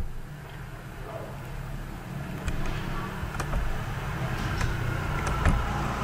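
Several sharp computer-mouse clicks, spaced unevenly, over a steady low background rumble.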